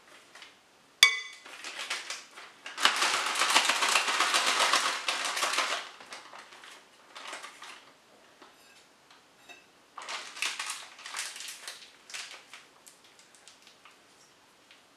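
A spoon clinks once with a short ring, then a plastic piping bag crinkles and rustles loudly for about three seconds as it is filled with icing and handled. Quieter crinkling of the bag comes again later.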